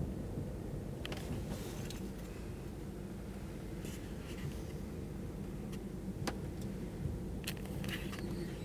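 Passenger coach of the Night Riviera sleeper train rolling slowly out of the station, heard from inside the carriage: a steady low rumble with scattered sharp clicks and rattles.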